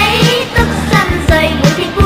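A song with a singer over a steady beat.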